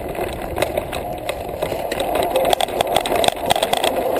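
Crystalyte H4065 electric bike hub motor whining under load on a steep climb, with the bike rattling and knocking over rough rock throughout.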